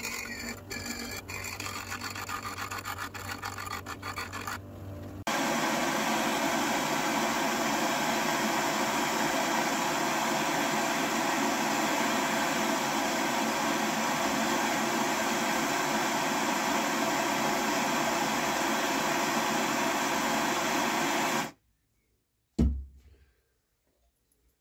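Bench grinder running with a steel rod held against its wheel, grinding it to a point, for about five seconds. Then a gas blowtorch hisses at a steady level for about sixteen seconds while heating the pointed rod clamped in a vice, and cuts off suddenly. A single knock follows about a second later.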